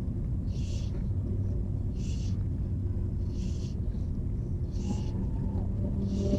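Low rumble, with a short hissing sound repeating evenly about every second and a half.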